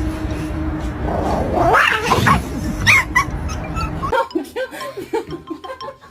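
A pet animal vocalising: drawn-out calls that glide up and down over a noisy background, then a run of short, quick cries after about four seconds.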